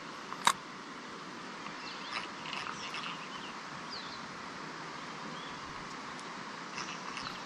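Outdoor ambience: a steady background hiss with a few faint bird chirps, and one sharp click about half a second in.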